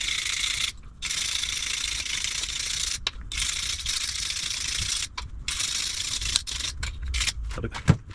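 A tool running in four runs of one to two seconds with short pauses between them, a steady hissing whir, while a coilover strut is being taken apart.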